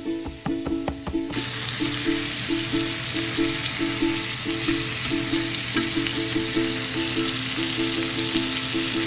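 Steaks sizzling in hot oil and butter in a cast iron skillet: a steady frying hiss that starts about a second in, right after a run of quick knife chops on a cutting board. Background music plays throughout.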